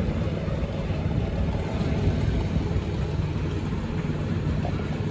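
Diesel engine of a miniature-railway E2 tank locomotive running steadily as the train passes close by.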